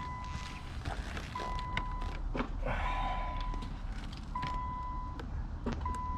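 A Nissan GT-R's warning chime beeping over and over: a steady, high single-pitched beep lasting under a second, about every one and a half seconds. Faint clicks and a brief rustle come about halfway through.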